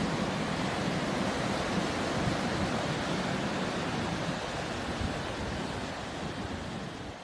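Ocean surf: waves breaking and washing ashore as a steady rush of noise, fading out toward the end.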